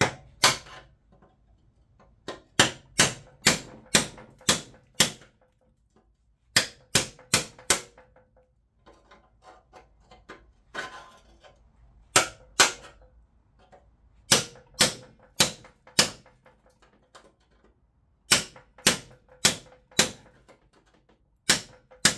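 Hammer striking a cold chisel against a rusted-on spindle nut on a steel mower deck, splitting the nut. Sharp metallic blows come in bursts of two to five, about two a second, each with a short ring.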